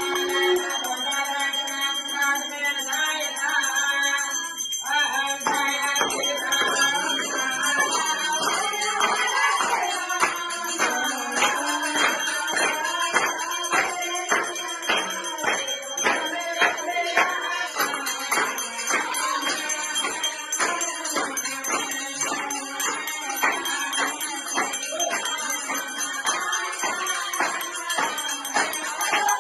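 Indian devotional music: group singing with jingling bells. It opens on held notes, and a steady percussion beat joins about five seconds in.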